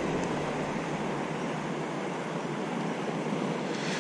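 Steady wind noise and wash of shallow sea water, with no distinct events.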